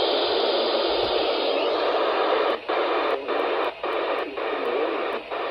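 Radio receiver static: a steady hiss with no voice on the channel, cutting out briefly about five times in the second half.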